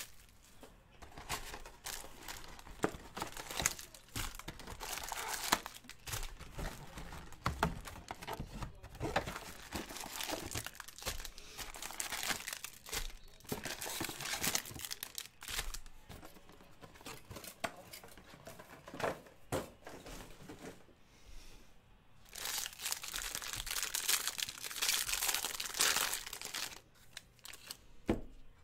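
Foil trading-card pack wrappers being torn open and crinkled by hand, an irregular crackling rustle that gets busiest for several seconds near the end.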